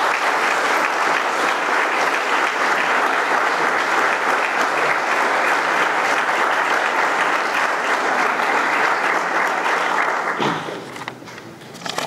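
Audience applauding steadily for about ten seconds, then dying away near the end.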